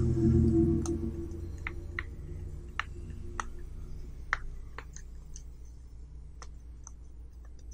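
Silicone pop-it fidget toy's bubbles being pushed in one at a time with a finger, giving short sharp pops at an uneven pace, about a dozen in all. Under them is a low steady hum, with a louder low rumble in the first second.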